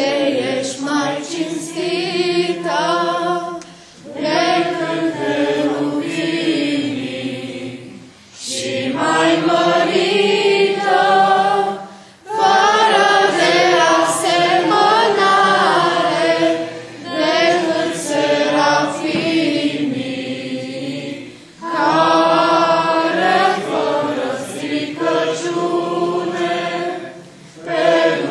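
A group of voices singing a hymn together in long phrases, with short breaks for breath about every four seconds.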